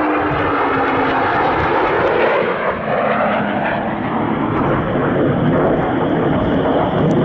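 Boeing F-15QA Eagle fighter jet's twin engines running loud and close. A tone in the jet noise falls in pitch during the first second, as the jet goes past.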